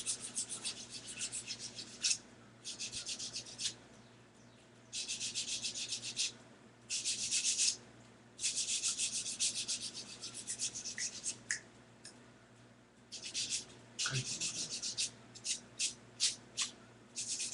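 Soft sander rubbed in quick back-and-forth strokes over a small plastic figure, about five strokes a second, in bouts with short pauses: sanding away flashing left from the molding.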